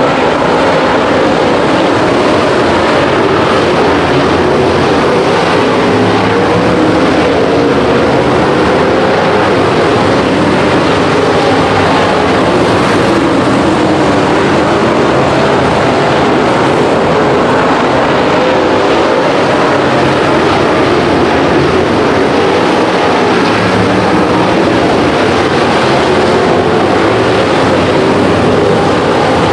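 Dirt late model race cars' V8 engines running hard in a feature race, a loud, unbroken engine drone whose pitch wavers up and down as the cars go around the track.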